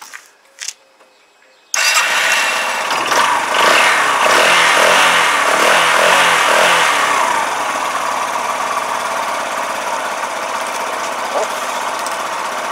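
Yamaha YBR 125's single-cylinder four-stroke engine catches suddenly about two seconds in, revs up and down for a few seconds, then settles to a steady idle. It starts on a newly fitted, temporarily wired ignition switch, a sign that the ignition now works.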